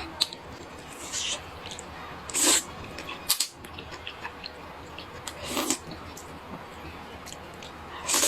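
Eating sounds from a bowl of Hunan rice noodles: short, noisy slurps and mouthfuls a few times, with quiet stretches between.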